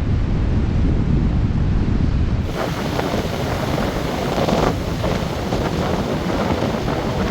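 Gale-force wind buffeting the microphone with a heavy rumble, then, from about two and a half seconds in, the hiss and wash of big storm waves breaking on the Baltic shore, swelling louder near the middle.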